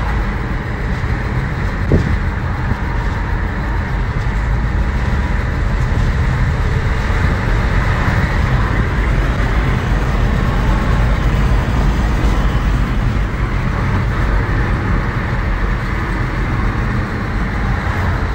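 Steady road and wind noise of a car driving at speed, heard from inside the car, with one short knock about two seconds in.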